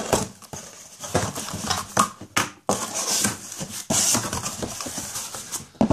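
Cardboard shipping box being opened by hand, its flaps pulled back with irregular scraping and rustling and a few sharp knocks of cardboard.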